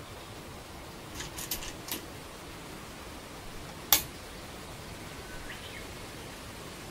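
A Go stone set down on a wooden board with one sharp click about four seconds in. A few lighter clicks come a couple of seconds before it, over a steady background hiss.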